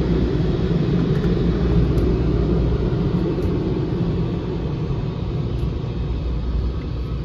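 Steady low rumble heard inside a car's cabin as the car pulls away from a car wash exit, fading slowly.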